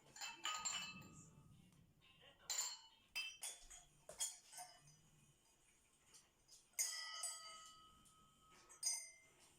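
Glass and ceramic tableware clinking: a handful of separate clinks, some with a short bright ring, as dishes and glasses are handled and knock together.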